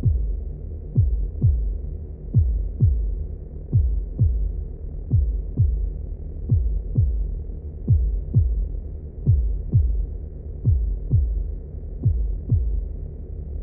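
Heartbeat sound effect: deep lub-dub double thumps, about 90 thumps a minute, over a steady low drone.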